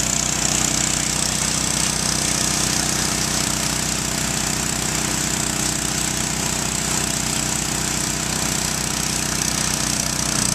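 Engine-driven pressure washer running steadily, with a constant hiss of its high-pressure water spray on the roof tiles.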